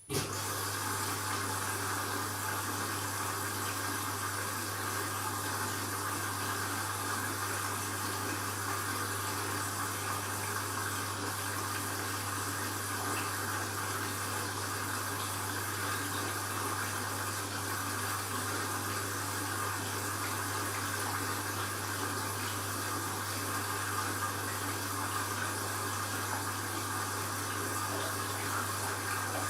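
Candy washing machine running an empty bleaching wash: water rushing through it with a steady low hum, both starting suddenly and holding even.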